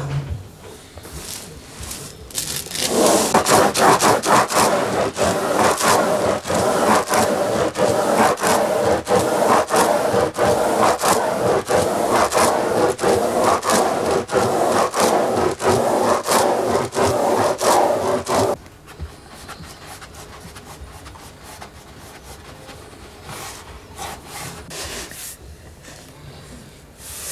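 A string of crystal beads rubbed back and forth over the paper backing of a hanging scroll to burnish it, a loud, even, rhythmic scraping. It starts about three seconds in and stops abruptly after about fifteen seconds, and fainter rubbing of paper follows.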